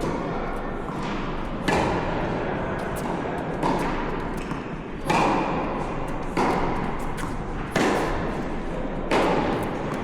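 Tennis rally: six racket strikes on the ball, one about every second and a half, as the two players hit back and forth.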